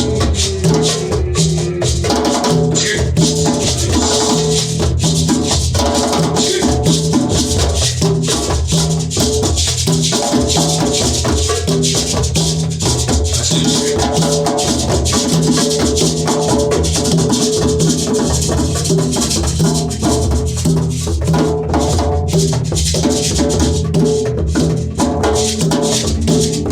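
Music with busy rattling percussion over a stepping bass line, running continuously at a steady level.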